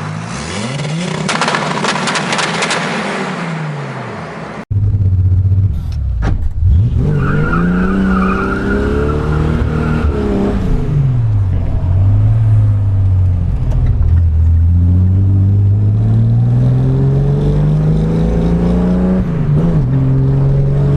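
Naturally aspirated Chevrolet Caravan straight-six engine revving: a short clip of the revs rising and falling that cuts off abruptly about five seconds in, then the engine revved up and down a few times and held in a long slow climb in revs before dropping back.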